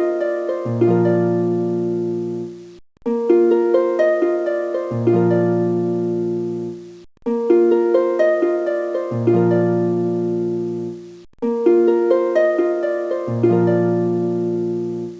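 Background music: a short plucked-string phrase over a low held note, looping about every four seconds with a brief break between repeats.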